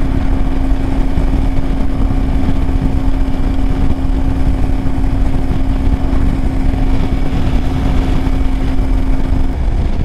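Kawasaki Versys-X 300 parallel-twin engine cruising at steady revs at freeway speed, holding one unchanging note under heavy wind rumble on the microphone. The engine note cuts off near the end.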